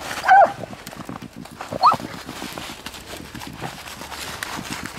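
Two short yelps from a beagle running a rabbit: the first falls in pitch, the second about a second and a half later rises. Footsteps run underneath.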